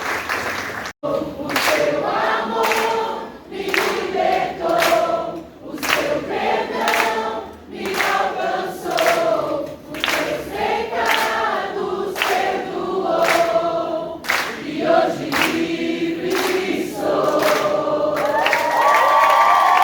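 A group of voices singing a worship song together, after a brief stretch of applause that cuts off abruptly about a second in. Near the end the voices swell into a fuller held chord.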